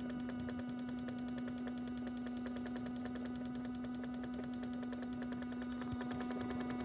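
A 40-year-old washing machine running its drum clean cycle, its motor giving a steady hum with a fast, even pulsing over it.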